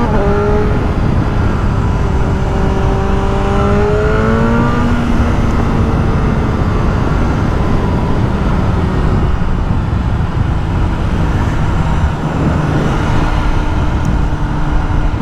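BMW M 1000 R's inline-four with an SC-Project exhaust, riding along and pulling through the revs, its pitch climbing just after the start and again about four seconds in. Heavy wind and road rush runs underneath.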